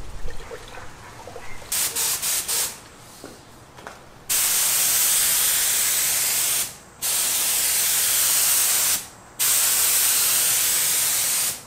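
Compressed-air paint spray gun spraying clear coat onto a carbon fiber panel. A few short hisses come about two seconds in, then three long, steady hisses of air and atomised paint, each two to three seconds, with brief breaks between passes.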